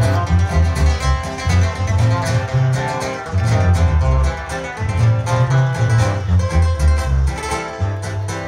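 Live band music played over a concert sound system: an instrumental passage with a heavy, rhythmic bass line.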